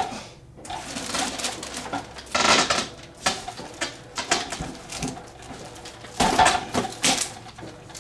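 Foam packing formers being pulled and rubbed against glued cardboard, squeaking and tearing, with two louder bursts about two and a half seconds in and again near six and a half seconds.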